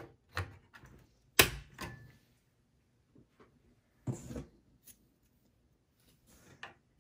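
DDR4 memory stick being pressed into a motherboard DIMM slot: one sharp click about a second and a half in as it seats and the slot's retention latch snaps shut, with a few quieter clicks and knocks around it. A brief rustle of handling about four seconds in.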